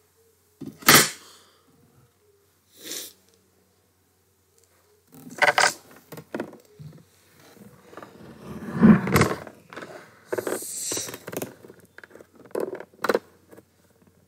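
Irregular rustling, scraping and a few sharp knocks from someone handling things at a desk. The loudest burst comes about a second in, with a busy cluster of scrapes and knocks past the middle.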